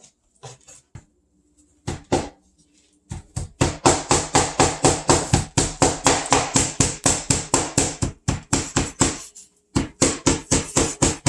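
Cleaver chopping chicken meat and bone on a cutting board: a few separate knocks, then a fast, even run of chops about three to four a second, with a short break near the end.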